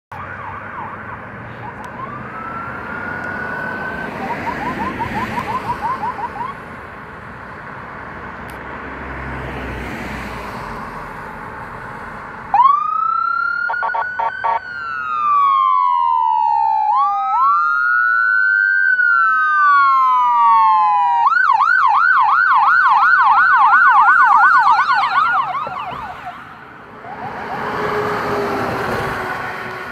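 Emergency vehicle sirens of an ambulance and a fire engine responding code 3. A fainter wail and fast yelp come first. About twelve seconds in a loud siren starts with a few short blips, runs a slow rising-and-falling wail, then switches to a fast yelp of about four cycles a second. Near the end the siren fades and a fire truck's engine and tyres sound as it drives past close by.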